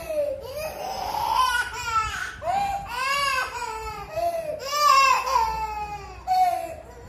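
A toddler girl crying and wailing in a string of high, pitched cries that rise and fall, loudest about five seconds in. She is crying to be given her blanket.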